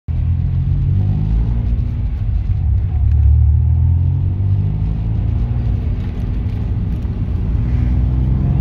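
Turbocharged flat-six engine of a Subaru Impreza WRX running with a deep rumble, its revs rising and easing a few times.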